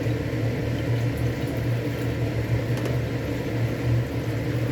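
A steady low hum from a running appliance or fan, with hot ramen broth being poured from a pot into a bowl.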